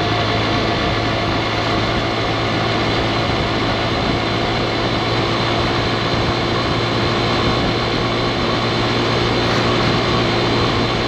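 110cc single-cylinder motorcycle engine running steadily while riding at an even speed, with road noise.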